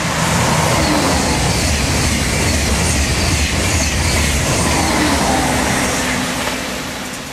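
TGV high-speed train passing at speed close by: a loud, steady rush of wheels on rail and air, easing off near the end.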